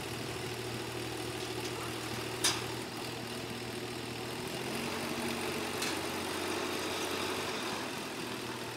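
Tractor engine running steadily at idle, powering the hydraulics that fold in the wings of a Zagroda land roller. A sharp clank comes about two and a half seconds in, and a lighter one near six seconds.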